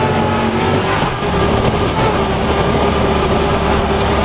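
Honda Pioneer side-by-side driving along a dirt trail, its engine and drivetrain running steadily, heard from inside the open cab.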